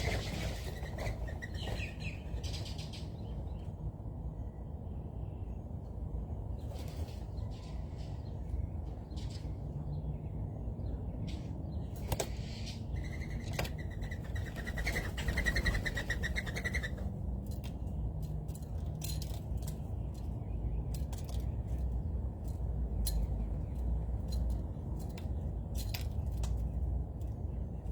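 Wild birds calling, with one fast-pulsing trill for a few seconds in the middle, over a steady low background rumble and scattered small clicks.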